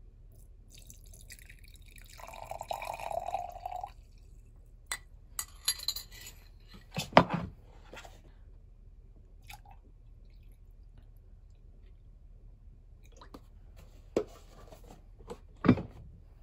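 Liquid poured from a small glass jug into a drinking glass for about two seconds, then scattered glass clinks and knocks as the glassware is handled and set down, the loudest a sharp knock a few seconds after the pour and another near the end.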